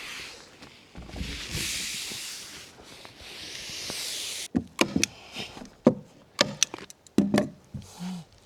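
Synthetic roofing underlayment (IKO Stormtite) hissing and rustling as it is unrolled and slid across roof boards, in two long stretches. Then a quick run of sharp knocks and clicks of work on the wooden roof.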